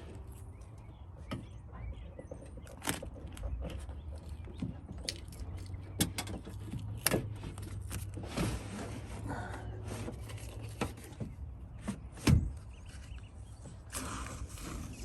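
Tape being pulled off a roll to hold up a van's window glass, with two longer tearing pulls, scattered clicks and knocks of handling, and one louder knock about twelve seconds in.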